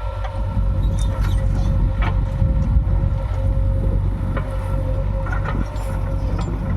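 JCB 3DX backhoe loader's diesel engine running with a steady low rumble and a constant whine, with a few sharp knocks of machinery over it.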